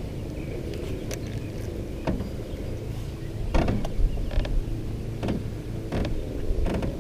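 Steady low wind rumble and water lapping against an aluminium boat hull, with a few light knocks about midway and later.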